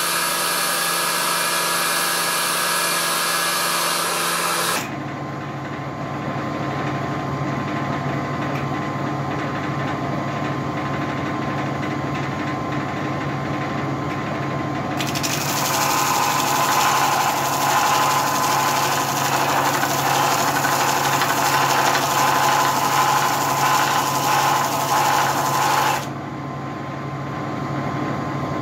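Wood lathe running as a wooden handle is turned, then a belt-driven sanding and buffing machine running with a steady motor hum. For about ten seconds in the middle the machine sound is louder and harsher, then it drops back near the end.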